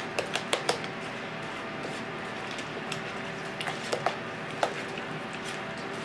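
Scattered light clicks and taps from kitchen handling, a few coming in quick clusters, over a faint steady hum.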